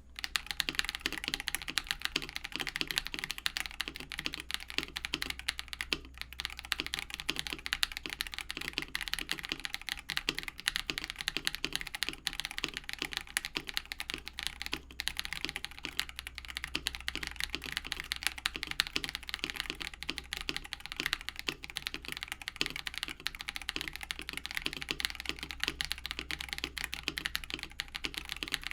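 Fast, continuous typing on a mechanical keyboard with lubed switches: a dense stream of key clacks and bottom-outs without pause.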